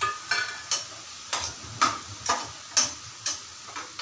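Metal ladle stirring and scraping mutton pieces in a stainless steel pan, about two ringing strokes a second, over a steady sizzle as the mutton sautés with ginger-garlic paste.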